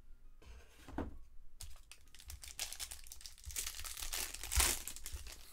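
Plastic wrapper of a pack of baseball cards crinkling and tearing as it is opened, in irregular bursts with the loudest rip near the end.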